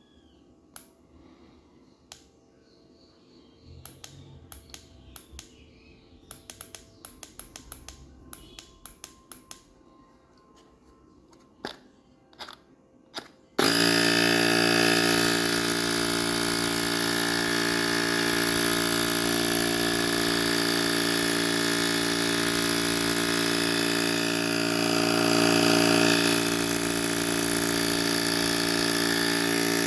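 Small clicks and handling taps, then about 13 seconds in a mini portable air compressor switches on abruptly and runs steadily with a loud, even hum. The compressor is running again after its seized motor was freed with lubrication.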